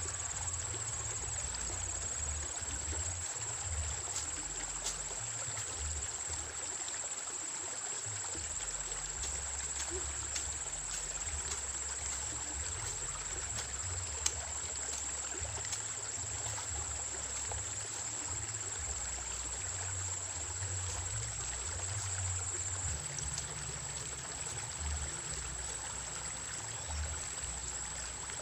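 Small river flowing steadily, with a steady high-pitched whine above it and an uneven low rumble underneath. A sharp click about 14 seconds in.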